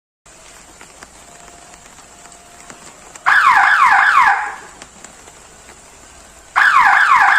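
Electronic door-open alarm siren sounding two loud bursts, each about a second of quick falling chirps at roughly five a second, the second burst coming about three seconds after the first.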